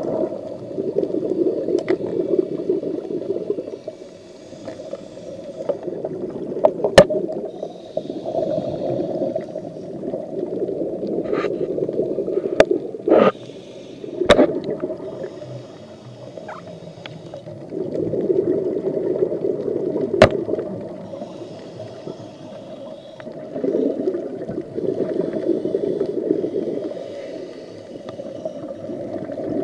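Underwater sound of a scuba diver breathing through a regulator: a few seconds of bubbling exhaust on each exhale, alternating with a fainter hiss as the diver inhales, in a cycle of about six seconds. A few sharp clicks cut through, several of them together a little before the middle.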